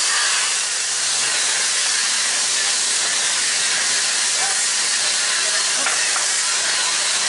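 A loud, steady hiss with no beat or tone to it.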